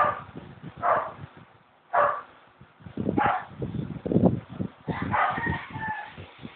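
Puppy giving short, high yelps about once a second, then a longer whine, while being nuzzled and licked by its mother; low scuffling of the two dogs moving can be heard between the cries.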